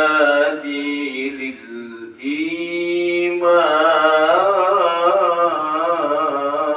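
A man reciting the Quran solo in the melodic, ornamented style of a qari, with long held notes and wavering ornaments. He breaks off briefly about two seconds in, then carries on.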